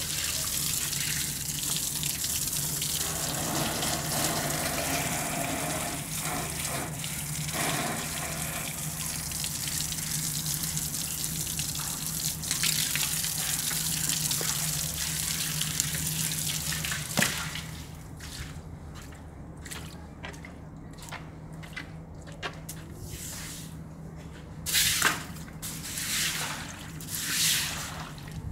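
Water from a garden hose spraying and splashing across a tiled floor, a steady rush that stops about two-thirds of the way through. Near the end come a few swishes of a push broom over the wet tiles.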